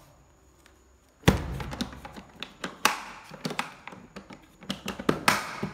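Hard plastic Hitachi tool case being closed: a loud thump about a second in as the lid shuts, then a series of clicks and knocks as the case is handled and its latches snapped.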